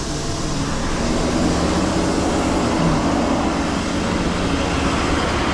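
Tow truck engine running steadily, a low even drone.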